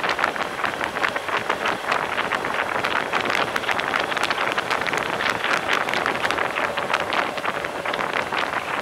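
Wind buffeting the microphone of a camera on a moving motorcycle: a steady rush with rapid flutter that drowns out the engine and road noise.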